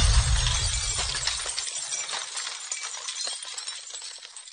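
Glass-shattering sound effect dying away: a fading low rumble with shards tinkling and settling, thinning out to almost nothing near the end.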